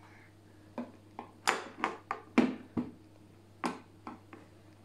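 Metal table knife knocking and tapping on a plastic high-chair tray as a toddler chops at a piece of banana: about ten short, sharp taps in an uneven run, thickest in the middle.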